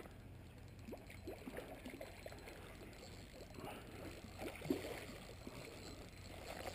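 A hooked fish thrashing and splashing at the water's surface while being played on a rod and line: faint, scattered splashes, the loudest about two-thirds of the way through.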